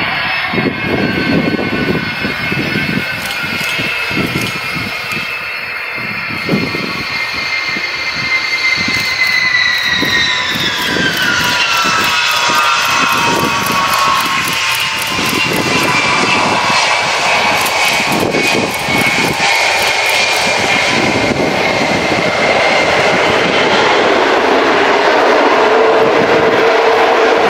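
Y-20 four-engine military transport jet landing: several turbofan whines slide down in pitch over a gusty low rumble, then settle into a steady jet roar that slowly grows louder as the aircraft rolls along the runway.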